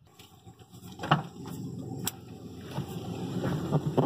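People moving about and climbing into the seats of a small car, a Mazda Miata, with several knocks and thumps against the car's door and body over a steady low hum. The sharpest knock comes about a second in, and others follow near the end.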